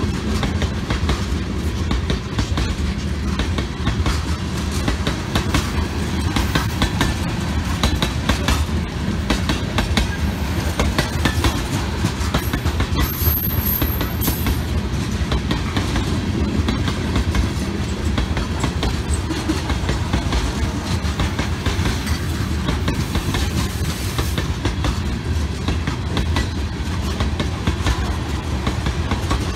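Freight train of loaded tank cars rolling past at close range: a steady rumble with the wheels clicking rhythmically over the rail joints. A brief high squeal rises above it about halfway through.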